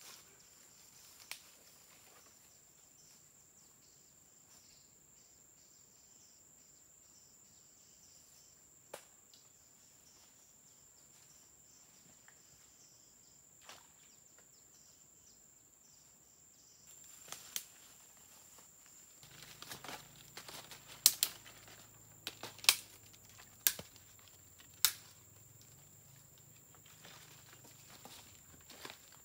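Footsteps through dry leaf litter, faint at first, then rustling and crunching in the second half with several loud, sharp cracks, over a steady high-pitched whine.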